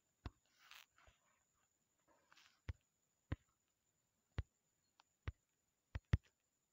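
A series of short, sharp taps, about nine of them at uneven gaps, with a quick double tap near the end. These are most likely fingers tapping a phone touchscreen. A faint soft rustle comes about a second in and again past two seconds.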